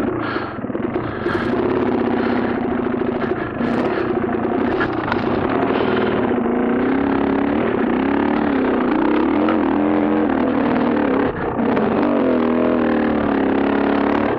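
KTM dirt bike engine running under changing throttle, its revs rising and falling over and over, with a brief drop in level about eleven seconds in.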